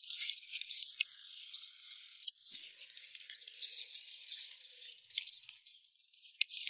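A few sharp, irregular clicks and snips of wire cutter pliers working on old taped wiring, over a steady faint high hiss.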